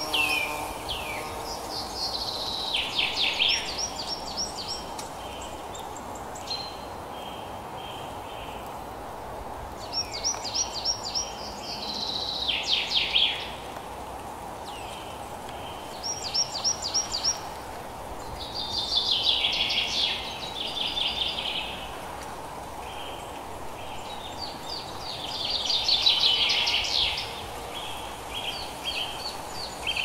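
A songbird singing: short phrases of rapid, high repeated notes and trills, one every few seconds, over a steady background hiss.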